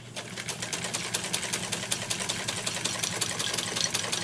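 1924 Singer class 15 sewing machine running on its belt-driven electric motor, stitching fabric with a rapid, even clatter of needle strokes over the motor's hum. It is sewing straight stitch at its longest stitch length.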